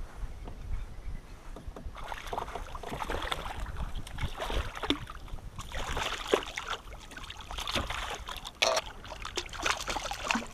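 Irregular clicks, knocks and rustling from fishing gear being handled aboard a fishing kayak, over a low rumble.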